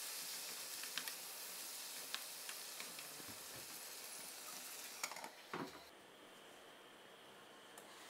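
Chopped peppers, onion and tomato sizzling in oil in a frying pan, with light knocks of a wooden spoon stirring against the pan. About five seconds in come a few louder knocks as a lid goes over the pan, and the sizzling turns quieter.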